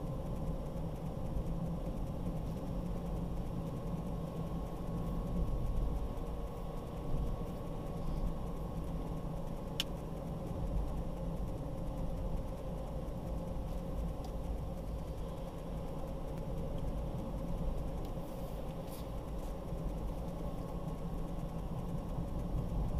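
Car driving along at steady speed: a steady low rumble of engine and road noise with a faint hum, and a single brief click about ten seconds in.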